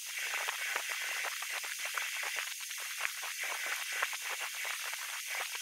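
A steady hiss with dense, irregular faint crackles.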